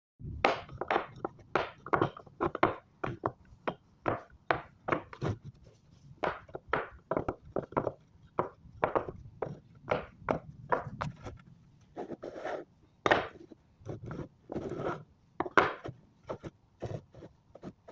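Pieces of wood knocking and scraping against each other in a long run of short, irregular clacks, about two a second, with a few longer scrapes near the middle.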